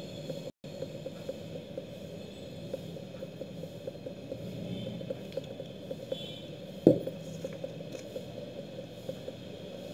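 Quiet handling of paper craft pieces and a glue bottle on a cloth-covered surface: small ticks and rustles, with one sharp knock about seven seconds in.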